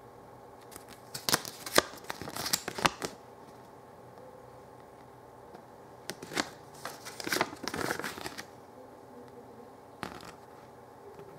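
A folded paper instruction leaflet being unfolded and its pages turned by hand, crackling and rustling. There are two bursts of rustling, about a second in and again around six seconds in, and a brief rustle near the end.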